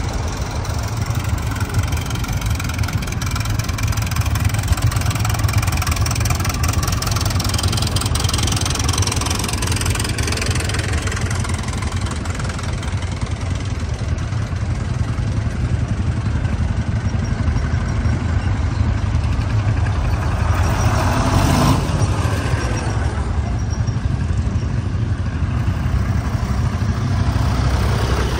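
Vintage tractor engines running with a steady low drone. It grows louder near the end as a tractor drives close by.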